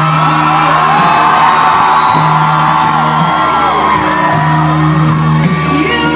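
Concert crowd screaming and cheering over live music that holds a steady low note; a lead singer's voice comes back in near the end.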